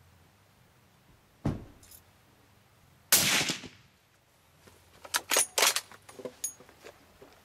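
A dull thump about a second and a half in, then a sharp report from a .30-calibre bolt-action rifle fired through a Templar Tactical suppressor about three seconds in; it dies away over about half a second. About two seconds later comes a quick run of sharp metallic clicks as the rifle's bolt is worked.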